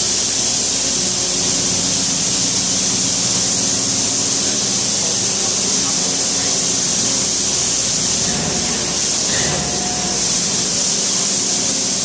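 Skid steer's rotary broom attachment spinning its bristles against a concrete floor: a steady, loud hiss, with the skid steer's engine running steadily underneath.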